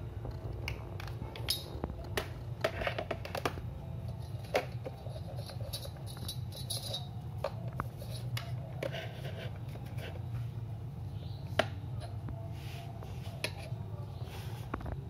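Scattered light clicks and knocks from a plastic digital photo frame and a steel ruler being handled and set down, over a steady low hum.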